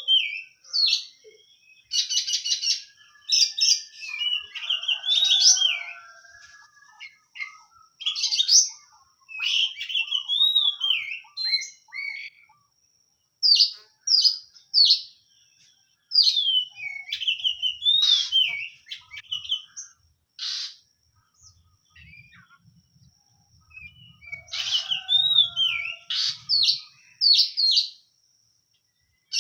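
Oriental magpie-robin (kacer) singing: bursts of varied whistled phrases and rapid chatter, broken by short pauses.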